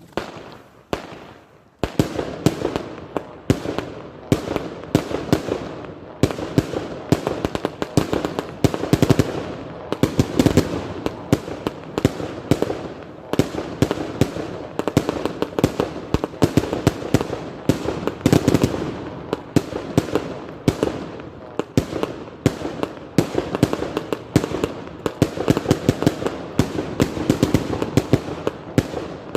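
An Iskra 'Line Wzor' F3 firecracker product going off as a rapid, continuous string of sharp bangs. One lone bang comes at the start, and the dense run of bangs begins about two seconds in.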